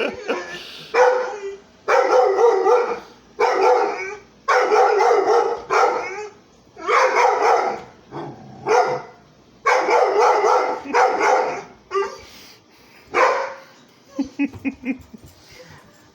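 A dog barking repeatedly at a robot vacuum cleaner, about a dozen loud barks roughly a second apart, some drawn out, with a few shorter, quieter ones near the end.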